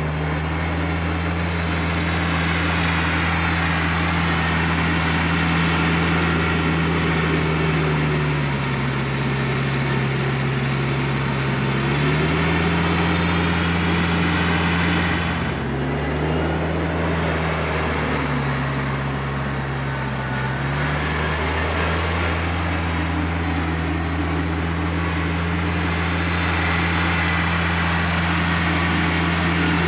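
TYM T474 compact tractor's diesel engine running at working speed while it moves gravel with the front loader; its pitch drops and picks back up several times.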